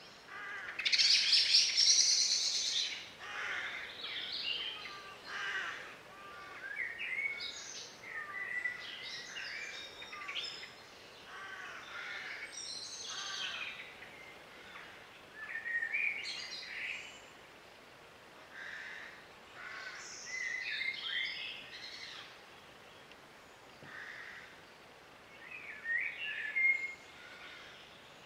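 Songbirds singing: a string of short, varied whistled phrases one after another, the loudest and brightest about a second in.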